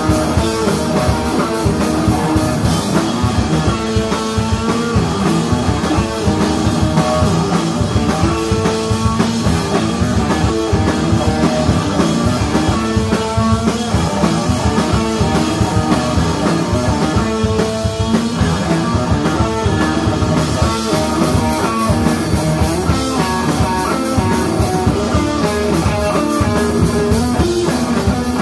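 Live stoner rock band playing an instrumental passage: distorted electric guitar with bent notes over a full drum kit with steady cymbals.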